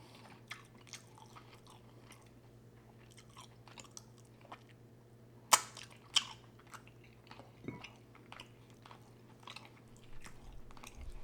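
A person chewing and biting into a tender, slow-cooked smothered turkey wing, with soft wet mouth sounds and scattered smacking clicks. One sharper, louder smack comes about five and a half seconds in.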